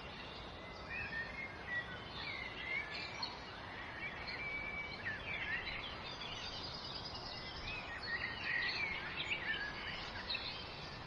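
Several songbirds chirping and singing over a steady background hiss, with short rising and falling whistled notes that cluster more thickly around the middle and later part.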